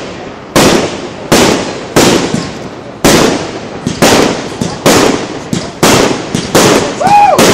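Aerial fireworks shells bursting in quick succession, a sharp bang about every half second to second, each fading out in a short echoing tail.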